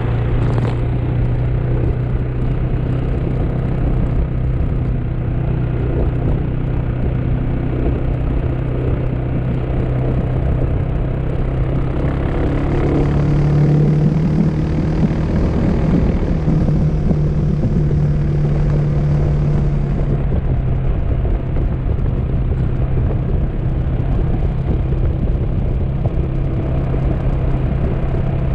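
Motor scooter's engine droning steadily at cruising speed under a rush of road and wind noise. Its pitch rises about halfway through, holds for several seconds, then drops back lower.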